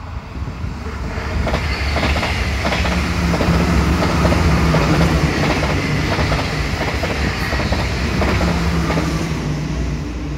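NS ICMm (Koploper) intercity electric multiple unit passing close by, its wheels clicking over the rail joints over a steady low hum and rumble. It grows louder into the middle as the carriages go by and eases near the end.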